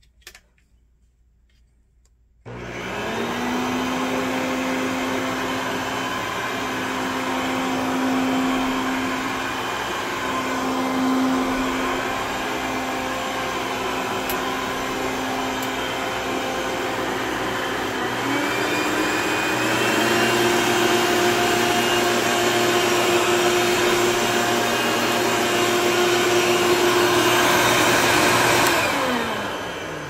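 Hoover 3-speed Quik-Broom stick vacuum cleaner switched on about two and a half seconds in, its motor spinning up to a steady whine over the rush of air. About eighteen seconds in the pitch climbs to a higher steady note. Near the end it is switched off and winds down with a falling pitch.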